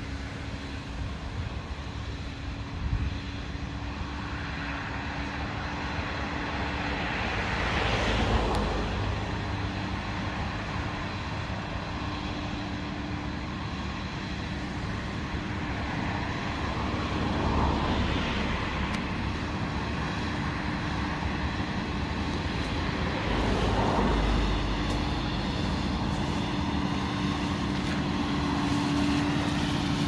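Two tractors' engines running under load as they pull ploughs through the field, a steady drone growing gradually louder as they approach. Gusts of wind on the microphone come and go several times.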